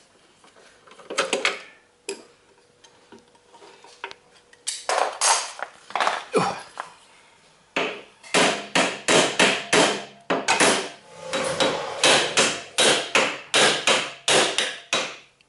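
Hammer blows on a steel rod used as a drift to drive out the stuck rear shock mounting bolt of a Yamaha FZ600: a few single strikes, then from about halfway a steady run of about three sharp blows a second.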